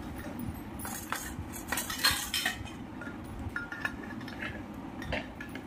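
A steel serving spoon and steel plates clinking against a stainless-steel pot as food is dished out: a scatter of sharp metallic clinks, with a few short ringing notes a little after halfway.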